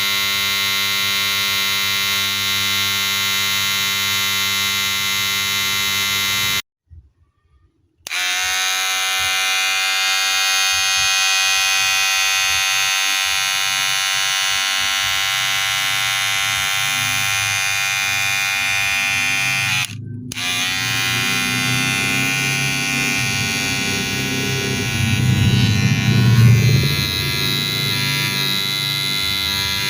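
Wahl cordless hair clipper running with a steady buzz. It is switched off about seven seconds in and back on about a second later, drops out briefly near the twenty-second mark, and near the end the buzz turns rougher and louder for a couple of seconds.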